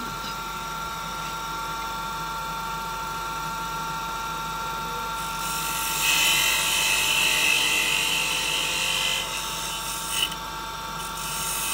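Wood lathe running with a steady motor whine. About halfway in, a hand chisel starts cutting the small spinning wooden workpiece, undercutting it with a hissing scrape for a few seconds; it stops briefly and starts again near the end.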